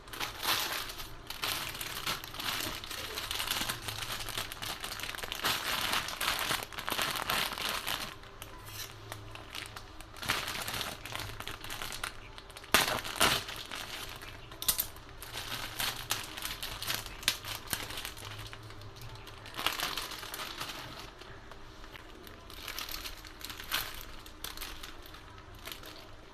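Plastic packaging crinkling and rustling as a pack of balloons is handled and opened. The crinkling is dense for the first third, then comes in intermittent bursts, with one sharp snap about halfway through.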